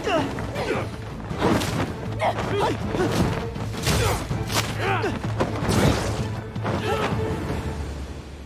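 Staged martial-arts fight sound effects: a run of sharp thuds and blows, roughly one a second, with short shouts and grunts, over a dramatic music score that fades away near the end.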